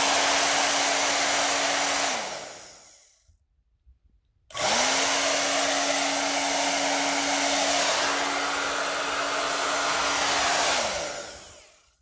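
InfinitiPRO by Conair 1875 W AC-motor hair dryer blowing, a steady motor hum under a loud rush of air. It is switched off about two seconds in and winds down to silence. About a second later it is switched on again and runs for roughly six seconds before winding down near the end.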